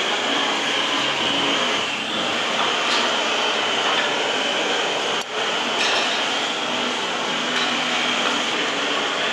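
A steady, loud rushing noise with a faint low hum beneath it, starting suddenly, with a brief dip about five seconds in.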